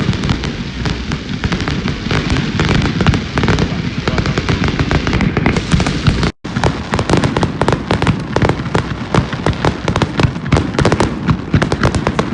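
Fireworks display: a dense, continuous barrage of bangs and crackles, cutting out abruptly for an instant about six seconds in and then carrying on.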